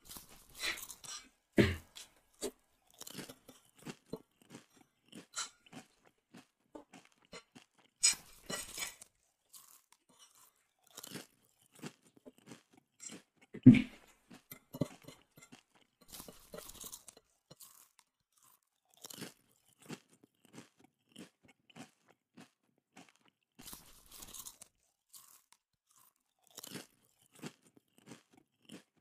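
Close-up chewing and crunching of chicken feet: irregular crisp crunches and clicks, with two louder, heavier crunches, one near two seconds in and one near fourteen seconds in.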